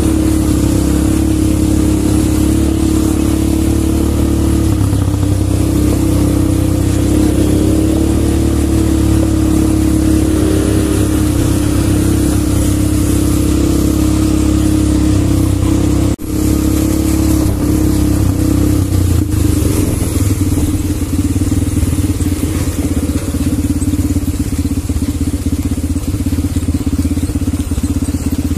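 Quad bike (ATV) engines running at a steady pitch. After a brief break about halfway through, the note drops to a lower, pulsing run like an idle.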